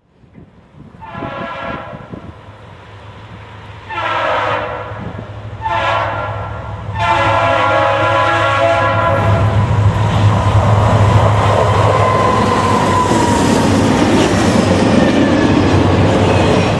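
Diesel freight locomotive's air horn sounding four blasts, the last one the longest, as the train approaches; the locomotive then passes close by, its diesel engine running loud with rail and wheel noise.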